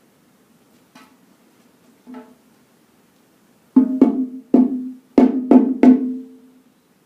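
A drum struck by hand: two soft taps, then six loud strikes in quick succession, each ringing briefly.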